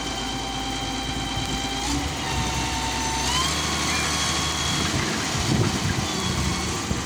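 Wheeled excavator's diesel engine and hydraulics running under load as the boom lifts an overturned tractor trolley. A steady whine rises in pitch about three seconds in.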